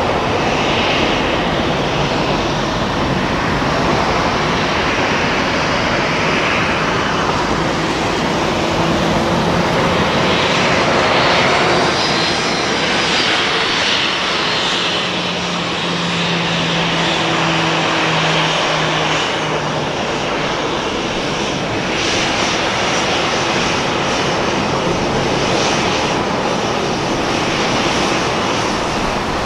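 Boeing 737 airliner taxiing, its CFM56 jet engines running at low power: a steady jet noise with a faint hum in the middle.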